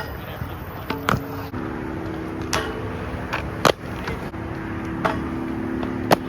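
Skateboard wheels rolling with a steady hum, broken by about five sharp clacks of the board hitting the ground, over wind noise on the microphone.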